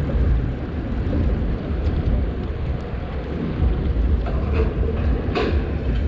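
Low, steady rumble of wind buffeting the microphone, with a brief tap about five and a half seconds in.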